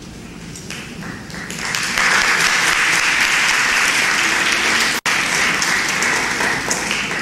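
Audience applauding in an auditorium, swelling over the first two seconds, then easing off near the end, with a brief dropout in the sound about five seconds in.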